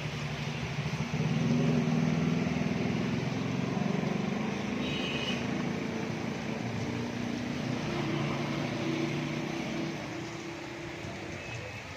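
A motor vehicle's engine running with a steady low hum, swelling about a second in and easing off near the end, over a steady hiss of rain.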